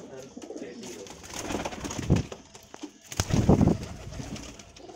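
Domestic high-flyer pigeons cooing in their loft, with a longer, louder coo about three and a half seconds in.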